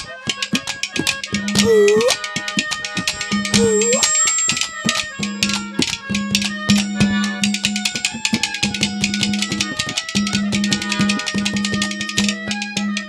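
Instrumental interlude of Haryanvi ragni folk music: fast, dense tabla-style hand-drum strokes over a sustained drone and melody line.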